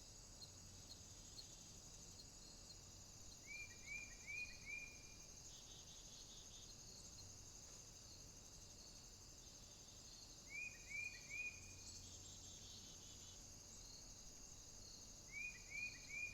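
Summer-afternoon outdoor ambience: a faint, steady high-pitched insect chorus, with a bird giving groups of three or four short rising chirps about every five to six seconds.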